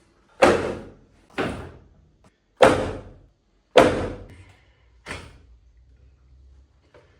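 Five loud slamming impacts about a second apart, each sharp at the start and dying away over half a second, the last one weaker.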